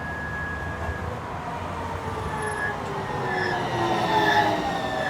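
Interior of an electric tram running: a low rumble under the whine of the electric traction motors, which falls slowly in pitch. Short high squeals come in during the second half, growing louder about four seconds in.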